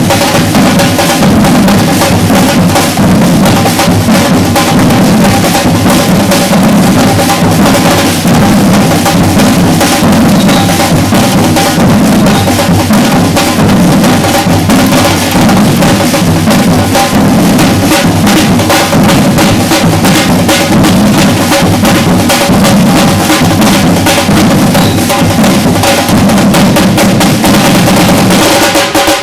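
Batucada percussion ensemble playing a loud, steady samba rhythm, deep surdo bass drums under dense, rapid snare-drum strokes.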